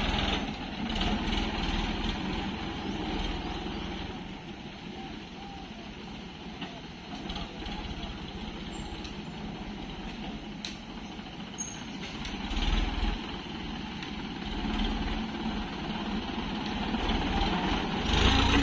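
Sonalika DI 750 tractor's diesel engine running steadily as it pulls a trolley loaded with soil over a dirt track. It is louder at first, fades in the middle as the tractor moves off, and grows loud again near the end as it comes close.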